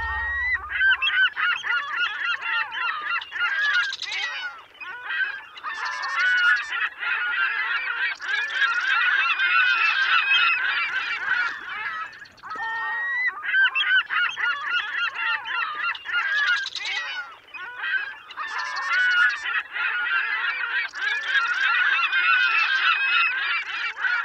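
A large flock of birds calling all at once, many overlapping honking and squawking calls with brief louder flurries. It is a continuous ambience bed whose pattern repeats about halfway through.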